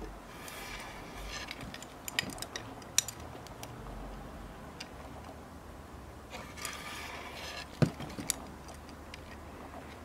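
Metal-framed wooden belt buckles clicking and clinking against each other as they are handled, with leather straps rustling. A handful of sharp clicks, the loudest late on.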